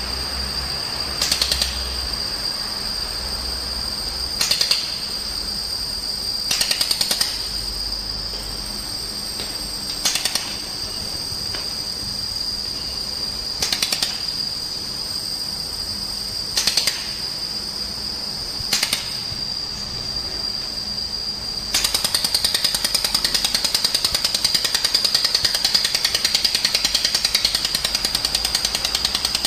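Handheld fiber laser welder firing. It gives seven short buzzing bursts a few seconds apart, then about two-thirds of the way through settles into a continuous fast-pulsing crackle as it runs a weld. A steady high-pitched tone sounds under it throughout.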